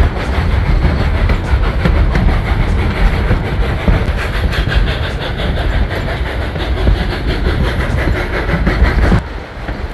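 Cumbres & Toltec narrow-gauge passenger train under way: a steady rolling rumble with wheels clattering over the rails. It gets noticeably quieter near the end.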